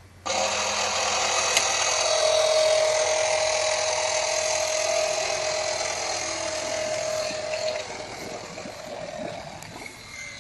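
Water Tech Pool Blaster Max CG battery-powered pool vacuum switched on, its motor starting suddenly and running steadily with a high whine. About eight seconds in, the whine stops and the sound drops somewhat but keeps running.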